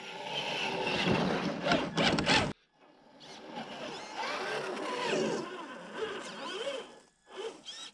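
Traxxas TRX-4 Ford Bronco RC crawler's electric motor and gears whining as it climbs through snow, the pitch rising and falling with the throttle. There is a brief break about two and a half seconds in.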